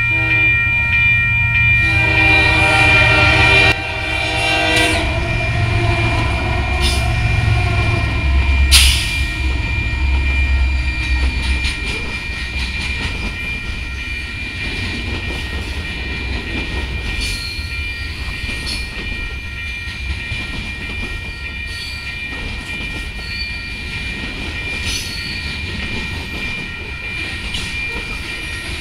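Freight train's diesel locomotive air horn sounding a chord for the grade crossing, cutting off about four to five seconds in, over a steady high ringing from the crossing signal. The locomotives then rumble past close by, and a long string of freight cars rolls through with clickety-clack of wheels over rail joints and occasional clanks.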